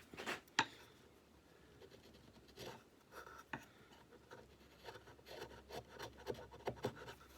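A chisel paring an oak knob by hand: faint, intermittent short scraping cuts, with a sharp click about half a second in.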